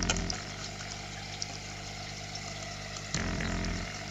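Steady low hum of the reef aquarium's pumps, with two short low rumbles, at the start and about three seconds in, from the food container being handled close to the microphone.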